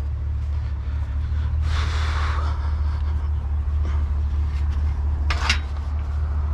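Truck engine running steadily, with a brief rustling noise about two seconds in and a short sharp clatter a little past five seconds.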